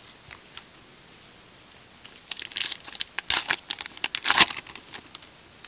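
A trading card pack's crimped wrapper being torn open and crinkled by hand, in a run of crackly bursts that starts about two seconds in and is loudest near the end.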